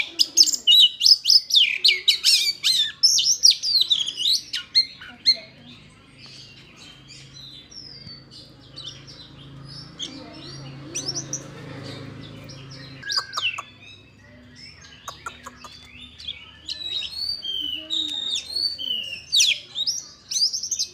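Oriental magpie-robin singing: quick runs of sharp, sliding whistled notes, dense for the first few seconds, sparse and scattered through the middle, then coming thick again near the end.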